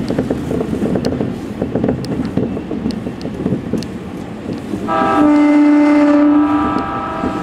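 Electric train's running rumble with wheel clicks over rail joints, then a train horn sounds one held blast of about two seconds, about five seconds in, as the train runs into a station.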